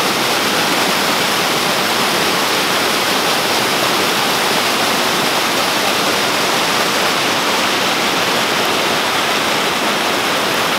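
Mountain creek running full after heavy rain, its white water rolling over rock cascades in a loud, steady rush.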